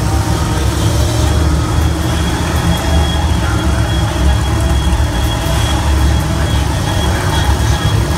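Monster truck engines running, a loud, steady, low-pitched sound that holds without a break.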